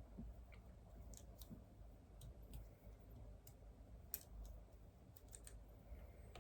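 Faint, irregular clicks of keys being typed on a computer keyboard, a dozen or so scattered keystrokes with one sharper click about four seconds in.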